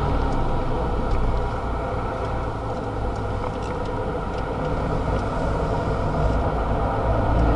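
Renault Mégane RS265's 2.0-litre turbo four-cylinder engine running under load, with tyre and road noise inside the cabin. The engine eases slightly through the corner, then builds again near the end as the car accelerates out.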